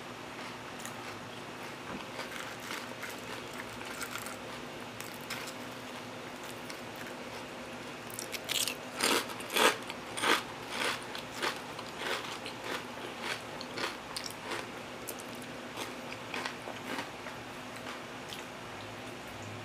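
Kettle-cooked potato chips crunched between the teeth while being chewed close to the microphone. Soft crunches at first, then a burst of loud, rapid crunches about halfway through that slows to fewer, quieter crunches.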